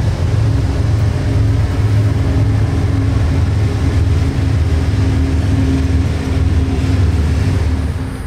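CSX diesel-electric freight locomotives moving past close by, engines running with a loud, steady low drone and hum that eases off near the end.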